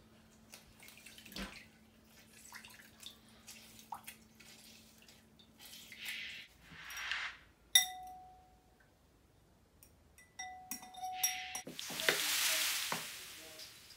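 Kitchen preparation sounds: scattered small knocks of utensils and dishes, and two swelling spells of water pouring, the louder one near the end. Two sharp clinks, about eight and ten seconds in, each leave a short ringing tone.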